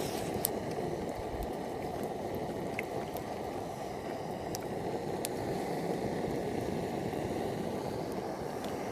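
Camp stove burner running with a steady low rushing sound, with a few faint clicks.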